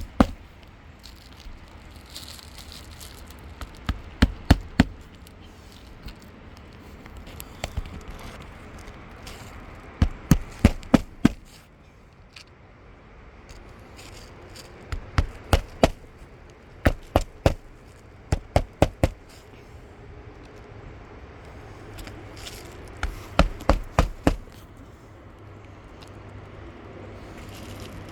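A hammer driving roofing nails into a replacement asphalt shingle: several short runs of three to five sharp strikes in quick succession, with pauses between them.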